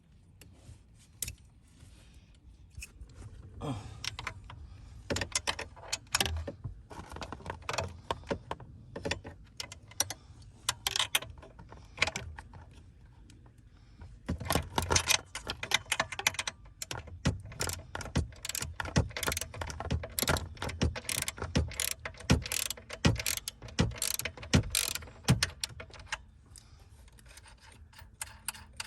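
Hand tools and car parts being worked: a long run of irregular mechanical clicks and rattles, with a short pause partway through.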